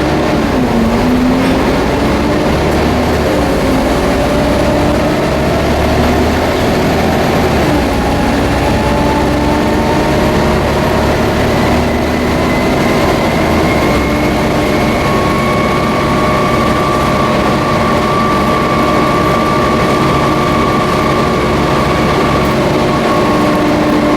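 Volvo B7TL double-decker bus running, with a loud vacuum-cleaner-like whine (the 'hoover') over a low engine drone and road noise. The whine climbs slowly in pitch over the first dozen seconds, then holds steady.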